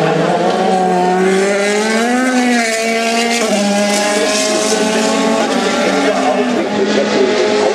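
Several race car engines running at racing speed on the circuit, their overlapping engine notes rising and falling; one note climbs and drops back again about two seconds in.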